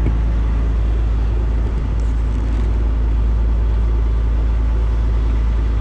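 Fishing boat's engine running steadily underway: a constant low drone under an even rushing noise, with no change in speed.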